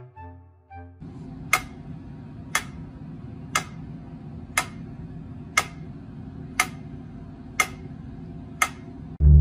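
A sharp tick once a second, eight times, over a steady low hum, after a second of music at the start.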